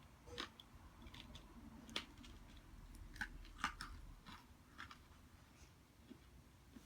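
Faint, irregular gritty crunches of crunchy baked red clay being chewed, a handful of sharp ones among softer mouth clicks.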